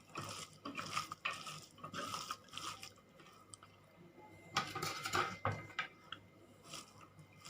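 A thick ground soya, onion and coriander mixture being mixed in a bowl: irregular squishing and scraping with light clinks against the bowl, in two spells with a pause about halfway.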